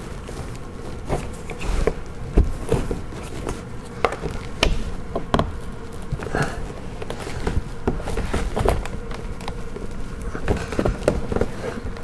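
Red plastic trim removal tool prying at the edge of a BMW F10 front door trim panel, with irregular clicks, creaks and knocks of plastic on plastic as the tool is worked in: the panel's retaining clips are still holding tight. A steady hum runs underneath.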